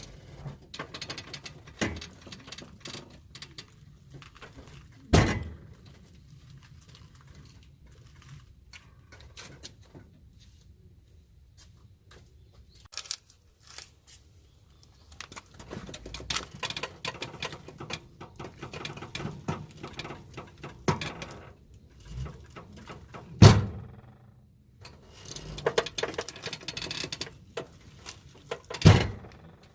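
Irregular knocks, clunks and rattling, as of hand work with tools and parts on a vehicle whose engine is off. Three sharp knocks stand out: one early, and two near the end, the loudest of them about two-thirds of the way through.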